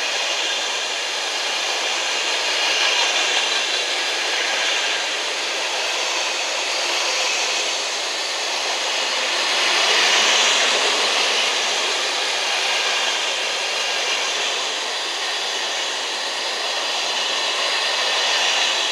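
Container freight train's loaded flat wagons rolling past: a steady rush of wheel and rail noise that swells a little about halfway through.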